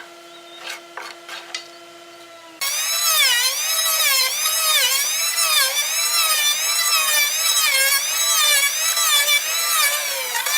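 Electric power tool working wood. At first a steady hum with a few sharp knocks. About two and a half seconds in it switches abruptly to a louder run whose motor pitch dips and recovers rhythmically, a little faster than once a second.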